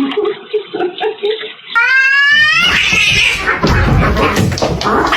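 A cat lets out a loud, drawn-out yowl that rises in pitch about two seconds in, followed by a stretch of noisy scuffling and knocks.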